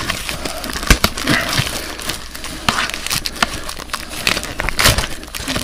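Clear plastic shrink-wrap crinkling and crackling as it is pulled and peeled off a cardboard trading-card box, with irregular sharp crackles.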